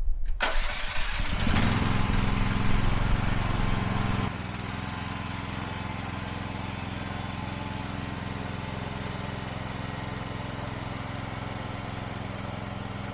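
Small engine of a Chinese mini excavator starting up in the first second or two, then running steadily. It is louder for the first four seconds or so and noticeably quieter after that.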